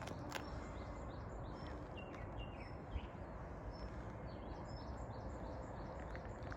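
Several songbirds chirping, with short high notes scattered throughout, over a steady low background noise. A soft thump about three seconds in.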